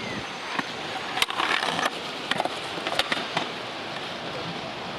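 Freestyle kick scooter's wheels rolling over concrete paving, with several sharp clacks along the way, the loudest about a second in and about three seconds in.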